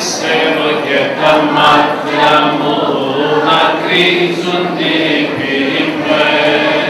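Choir chanting a Greek Orthodox hymn over a steady low held note.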